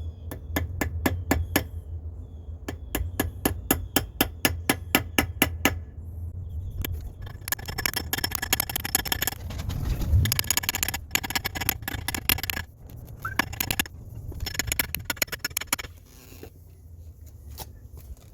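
Rapid tapping strikes, about six a second, in two runs over the first six seconds, followed by a longer stretch of denser clicking and scraping.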